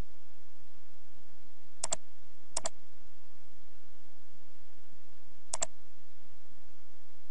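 Computer mouse button clicking three times, each click a quick double tick of press and release, spaced irregularly a second or three apart.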